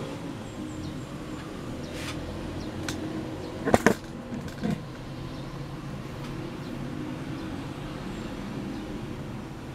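Steady low background hum, broken just before four seconds in by a sharp clattering knock from the camera being handled, with a smaller knock just after.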